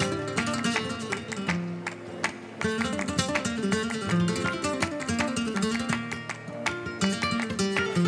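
Flamenco guitar playing a solo falseta between sung verses, with rapid plucked runs and strummed chords.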